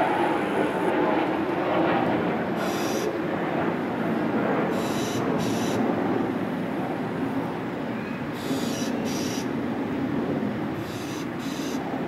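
Steady low rumbling noise with short high-pitched chirps, often in pairs, recurring every two to three seconds.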